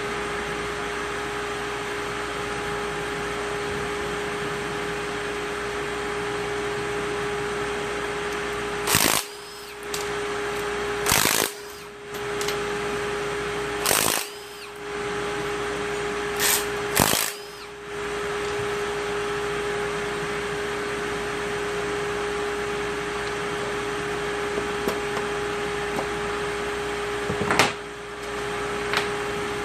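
A power tool running in six short bursts, five close together and one more near the end, over a steady hum with a constant tone.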